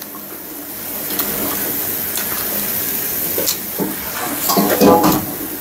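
A person chewing, with a few faint mouth clicks and a short voiced grunt about five seconds in, over a steady hiss. The face pulled at the same time suggests the food is sour.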